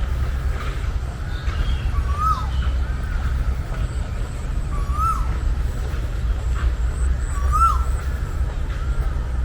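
Birds calling in a park: one bird repeats a short rising-then-falling call three times, a few seconds apart, among fainter chirps and high whistles, over a loud, steady low rumble.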